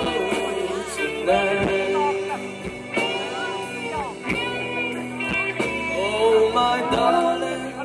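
Live rock band playing: electric guitars, drum kit and keyboard, with sliding, bent notes over steady drum hits.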